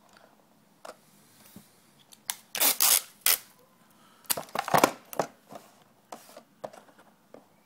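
Adhesive tape pulled off the roll and torn, in two noisy bursts about two and a half and four and a half seconds in, with a few light clicks from a plastic SIM card carrier being handled.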